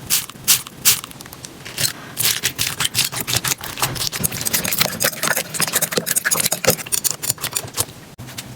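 Slime being worked, giving a few separate sharp clicks and then, from about two seconds in, a dense run of small crackles and pops.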